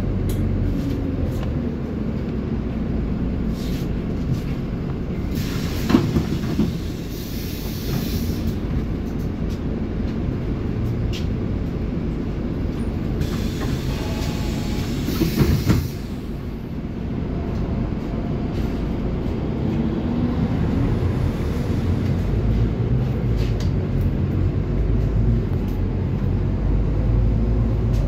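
Scania city bus running, heard from on board: a steady low engine and road rumble, with two short spells of hissing, about six and fourteen seconds in.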